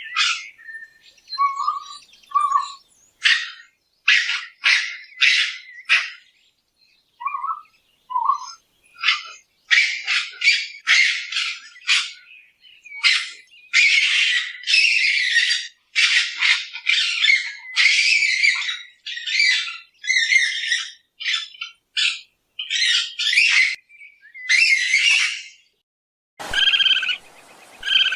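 Raccoon vocalizations: a few short chirps at first, then a long, rapid series of short, harsh screechy calls. Near the end a different recording cuts in, with a background hiss under repeated higher chirping calls.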